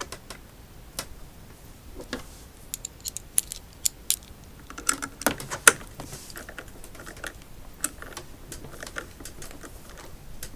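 Scattered small clicks and light taps of hands and tools on the parts of a disassembled electric unicycle, with a busier cluster about midway.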